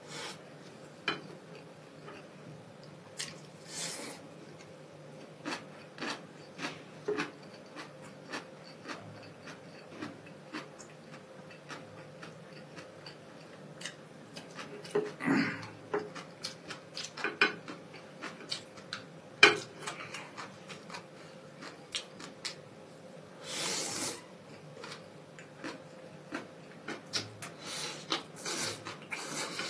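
Close-miked eating: instant noodles slurped and chewed, with chopsticks and a porcelain spoon clicking against the dishes in many short, sharp ticks and a few longer slurps.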